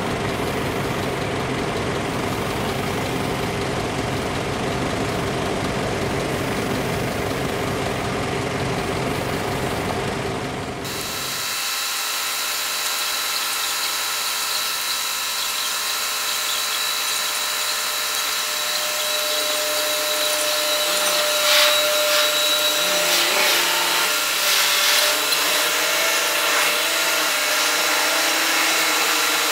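Machinery noise of a car ferry making its approach, played at four-times speed so it comes out as a steady mechanical whine. About eleven seconds in it changes abruptly from a low, dense rumble to a thinner, higher whine with steady tones.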